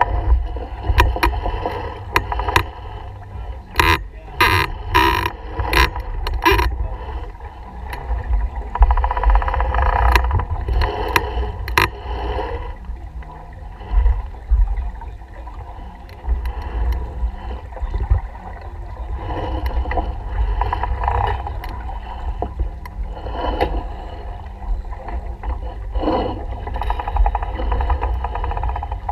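Wind buffeting an action camera's microphone on a sailboat under way, with water washing along the hull. A run of sharp clicks and knocks from deck gear comes about four to seven seconds in.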